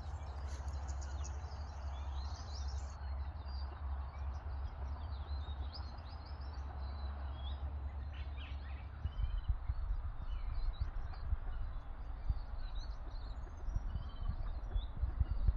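Outdoor ambience: a steady low rumble of wind on the microphone, with short high bird chirps scattered throughout that grow busier in the second half.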